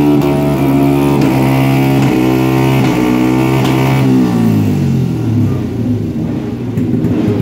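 Race motorcycle engine running at steady raised revs. About four seconds in, the revs fall away over a second or so and it settles at a lower, steady note.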